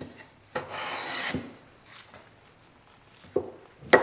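One scraping stroke of a tool across wood, lasting under a second, followed by a few sharp wooden knocks and clicks near the end.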